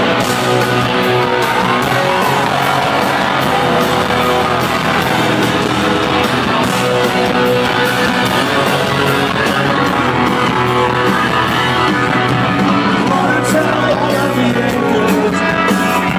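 Rock band playing live at full arena volume, with singing and electric guitar, heard from the crowd.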